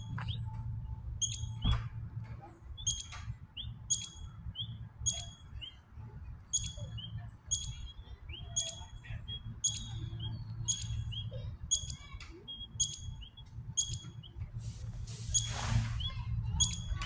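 A chipmunk calling a repeated sharp, high chip, about one chip a second.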